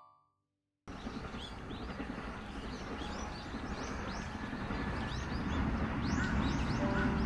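The last notes of a chime die away into a moment of silence, then outdoor ambience begins: small birds chirping over and over above a steady low rumble.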